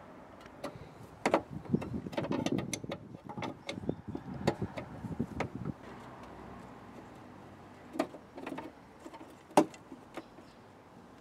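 Light metallic clicks, taps and rustling from hands and a small tool working at a brake master cylinder's brake-line fittings: a busy stretch of handling noise for the first half, then a few separate sharp clicks.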